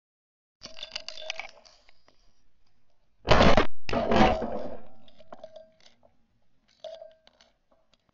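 Two shotgun shots about half a second apart, each followed by a fading tail, a few seconds in. A short clicking rattle comes before them, and a few faint clicks near the end.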